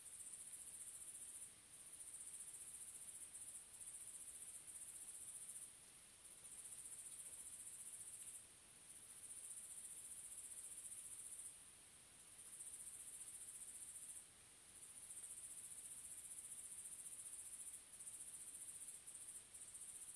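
Faint high-pitched trilling of night insects such as crickets, in long stretches of several seconds broken by short pauses.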